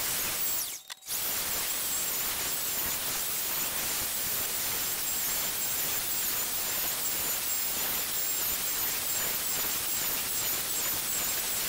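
Handheld router running at full speed on a slab-flattening sled, its bit surfacing a walnut slab: a steady rush of noise with a high whine that wavers in pitch as it is pushed through the cut. The sound cuts out for a moment about a second in.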